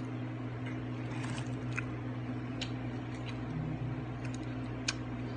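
Faint eating sounds of balut: soft squishes and a few small clicks from biting and chewing, over a steady low hum.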